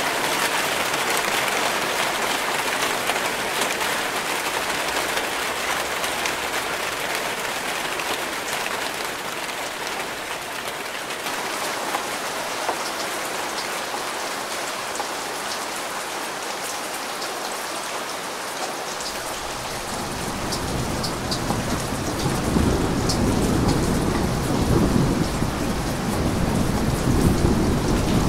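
Steady rain falling. About two-thirds of the way in, a deep, rolling thunder rumble builds up and continues beneath it.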